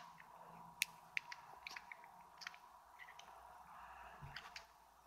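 Faint, irregular small plastic clicks from turning the rotating dial of a fidget cube by hand.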